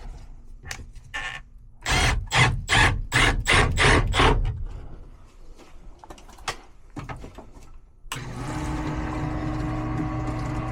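A quick series of loud rustling knocks, then about eight seconds in a condensate pump's motor switches on and runs with a steady hum. The pump is discharging the water that is now reaching it through the condensate drain line just cleared of a clog with nitrogen.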